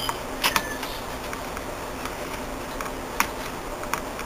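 Screwdriver tip flicking the DIP switches on an inverter air-conditioner's control board, giving a few short, sharp clicks at irregular intervals.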